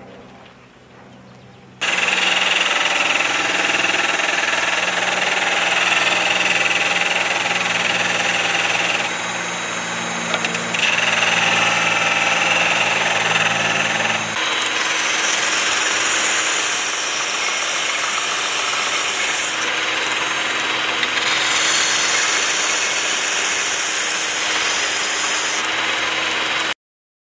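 Drill-powered homemade belt and disk sander running, starting about two seconds in, with the hiss of wood being sanded on the abrasive. The running tone changes abruptly about halfway through, the sanding hiss comes and goes in the second half, and the sound cuts off suddenly near the end.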